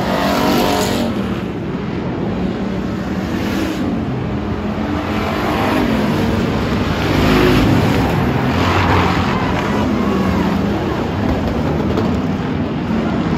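Several hobby stock race cars' engines running at speed on a dirt oval, the sound rising and falling as they pass, loudest about seven seconds in.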